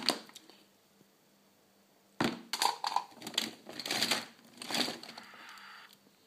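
Hard plastic action figures clattering and scraping against each other and the plastic storage tub as a hand rummages through them, in irregular bursts from about two to five seconds in.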